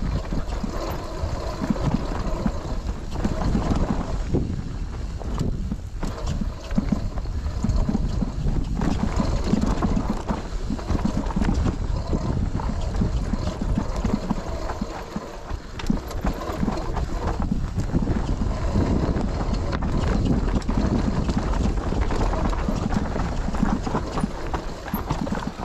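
Mountain bike riding down a rough dirt trail: tyres on dirt and stones, with a constant irregular rattle and knocking from the bike over bumps.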